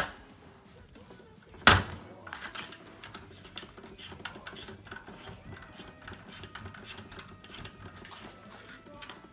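Small hard parts being handled and fitted into the scooter's rear deck: a sharp click at the start, one loud knock about two seconds in, then a run of light, irregular clicks and taps.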